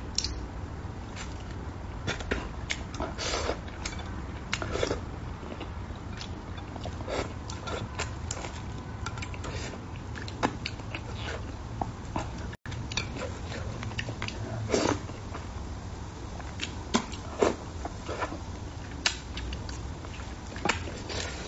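Close-up eating sounds: irregular wet lip smacks, sucking and chewing as braised fish is picked off the bones with chopsticks and eaten, over a steady low hum.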